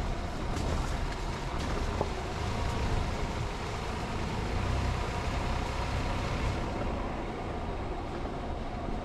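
Road noise of a vehicle driving: a steady low rumble of engine and tyres under an even hiss.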